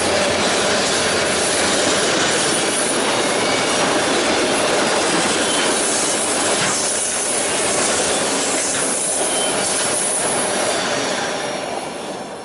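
Long train of autorack freight cars rolling past: steady wheel and rail noise with some high wheel squeal. It fades out near the end.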